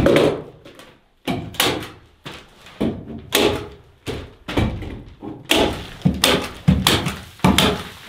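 An irregular series of knocks and thuds, roughly two a second, the loudest right at the start.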